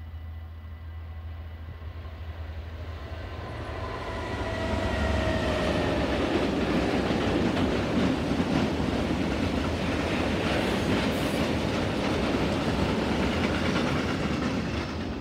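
A Class 66 diesel locomotive's two-stroke V12 engine hums louder as it approaches, with tones sliding down in pitch as it goes by about four to six seconds in. Then a long train of tank wagons rolls past, wheels running loud and steady on the rails, easing off only at the very end.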